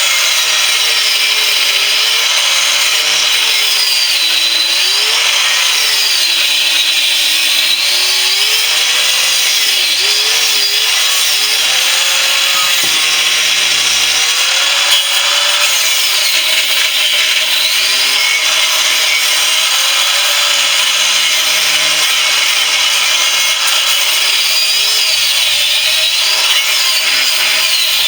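Angle grinder with a cut-off disc running continuously while cutting through the steel shell of an air-conditioner compressor. Its motor pitch repeatedly dips and recovers as the disc bites into the metal.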